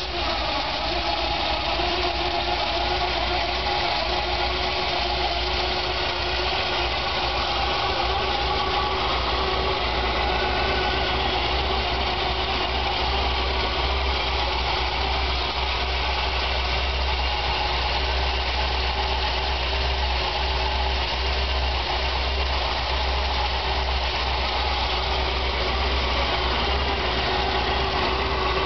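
Chevrolet 454 big-block V8 idling steadily on its first start, with a rough idle.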